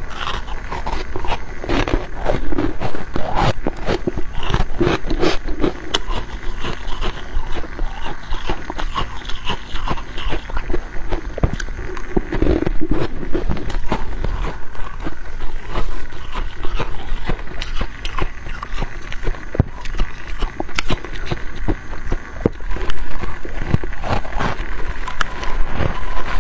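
Close-up crunching of freezer frost being bitten and chewed: a dense, irregular run of crisp crackles and crunches.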